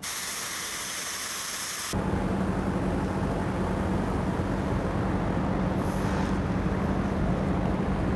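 Compressed-air spray-glue gun hissing for about two seconds as it sprays upholstery adhesive, cutting off sharply. After that comes a steady low hum with an even background noise.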